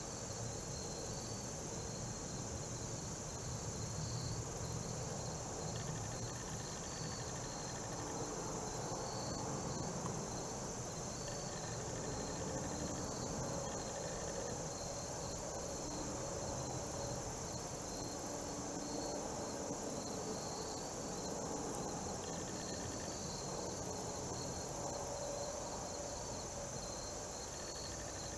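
Insect chorus in a field: a steady high-pitched trill with a rhythmic chirping just below it. A soft low rustle runs underneath.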